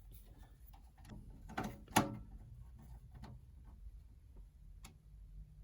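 Computer parts being handled and fitted into a PC case: scattered small clicks and taps, with a sharper knock about two seconds in.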